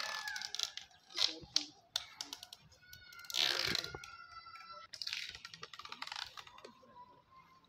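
Irregular clicking and clattering of small hard objects, with a few short ringing tones.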